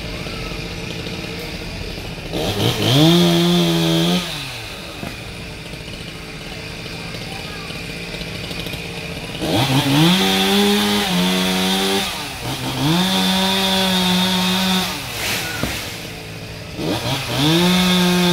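Chainsaw engine idling, then revved up to high speed and let back down four times, each rev held for one to three seconds.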